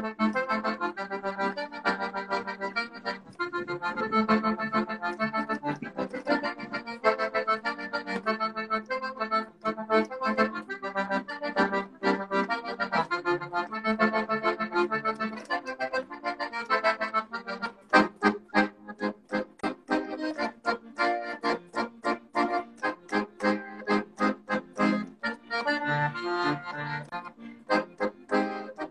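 Solo piano accordion playing an instrumental tune, with melody over chords. About eighteen seconds in, it changes to short, detached chords at about two to three a second.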